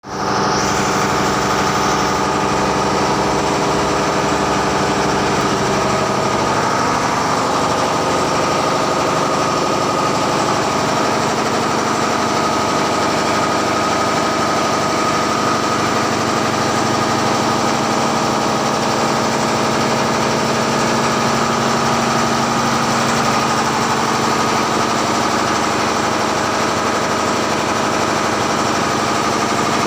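A tugboat's diesel engines running steadily and loudly, heard inside the engine room.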